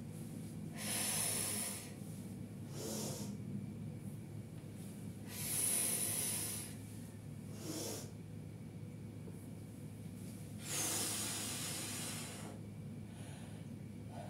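A woman breathing hard during a toe-touch stretching exercise. Three long, loud breaths come about five seconds apart, each lasting a second or more, with shorter, fainter breaths between them.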